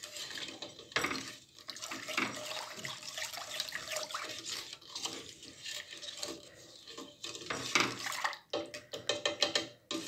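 Silicone whisk beating a thin molasses, flour and water batter in a stainless steel pot: irregular liquid sloshing and swishing strokes, which turn into a quick series of strokes near the end.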